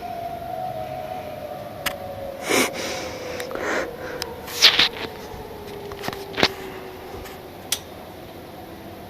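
Outdoor tornado warning siren winding down at the end of its test, its tone sliding slowly and steadily lower in pitch and fading. Several short bursts of noise cut across it, the loudest about halfway through.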